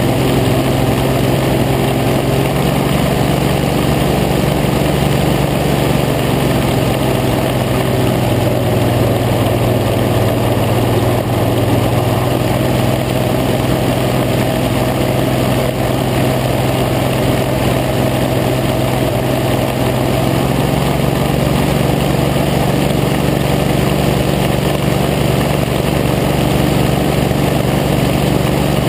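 Hovercraft engine and fan running steadily while the craft is under way, heard from on board as a loud, unbroken drone with a strong low engine note. The note shifts slightly about twenty seconds in.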